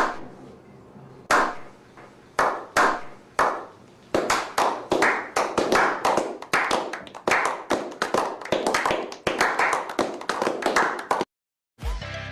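Hand clapping with a short echo after each clap. A few single claps come first, then steady clapping at about four claps a second, which cuts off suddenly near the end.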